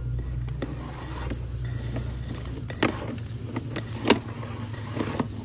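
Sewer inspection camera's push cable being fed down the line: irregular sharp clicks and knocks, the loudest about three and four seconds in, over a steady low hum.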